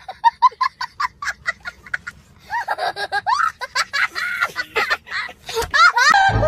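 A young boy laughing hysterically: a quick run of short laughs for about two seconds, then longer laughs that waver up and down in pitch.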